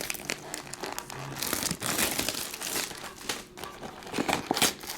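Crinkling of trading-card pack wrappers as packs from a Topps baseball jumbo box are handled and opened, an irregular run of crackles.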